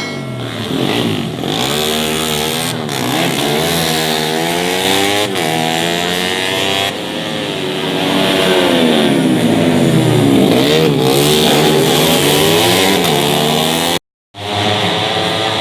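Several tuned four-stroke 150 cc underbone racing motorcycles at full race pace, their engines revving up and falling back as they accelerate, shift and pass, with several engine notes overlapping. The sound cuts out briefly near the end, then the engines resume.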